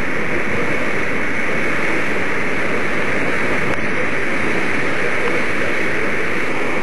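Steady, unbroken rushing noise aboard a ferry under way, with no distinct engine tone or separate events.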